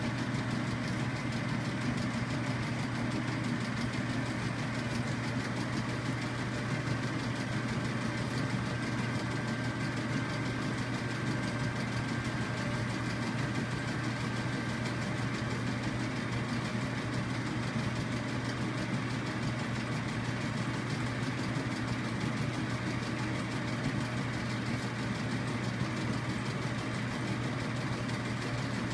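Polaroid Polarvision player's motor and cooling fan running with a steady, unchanging hum and whir as the film plays.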